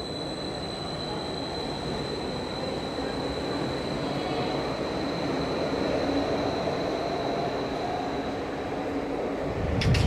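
Athens ISAP Line 1 electric train running past on the tracks: a steady rolling rumble with a steady high-pitched whine, which fades out about eight seconds in. Near the end a louder rumble with clicks cuts in.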